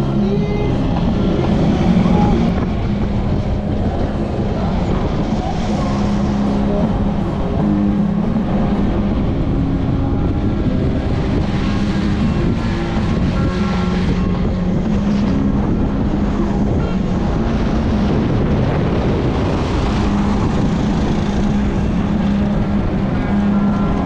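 Small motorcycle engine running steadily while riding, with wind noise over it.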